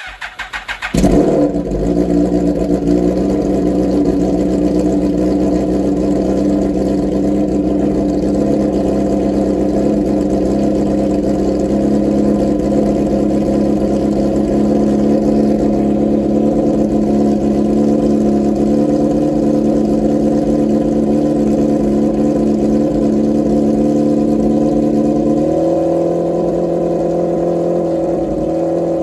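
Suzuki GSX-R1000 inline-four motorcycle engine cranking briefly on the starter, catching about a second in, then settling into a steady idle. The idle pitch steps up slightly near the end.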